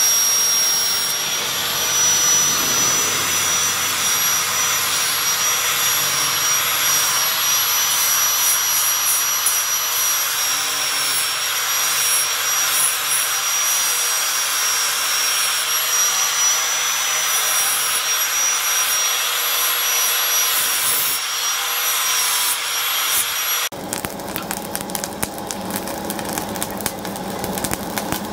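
Angle grinder with a disc grinding the steel of a knife blade: a steady high whine over a grinding hiss. Near the end it cuts off abruptly and a coal forge takes over, a steady rush with many small crackles.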